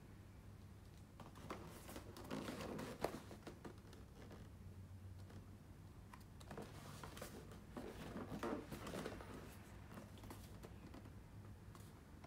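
Faint handling of a cardboard product box: fingers scuffing, rubbing and tapping on the card in scattered bursts as it is turned over, over a steady low hum.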